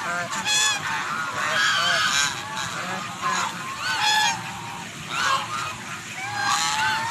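A flock of domestic ducks quacking: many short calls from several birds overlapping, with no break.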